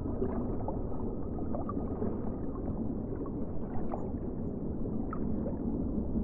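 Underwater ambience: a steady, muffled watery rumble with gurgling and a few faint short chirps.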